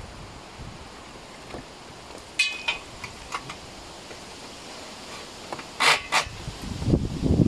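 Small metallic clicks and a brief ringing clink as tools are worked on a compressor's wheel and tank, then two short sharp rasps close together. Near the end, a strong gust of wind starts buffeting the microphone.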